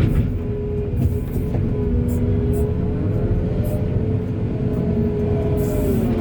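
Diesel engine of an excavator working under load, a steady low rumble with a held whine whose pitch rises slightly in the second half.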